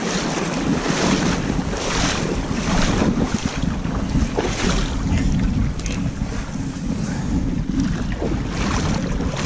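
Someone wading quickly through a shallow river, water splashing and sloshing with each stride, over a low rumble of wind and handling noise on the microphone.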